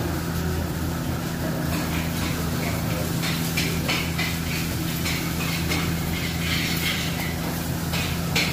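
Steady low machine hum, with short bursts of hiss coming and going from about two seconds in.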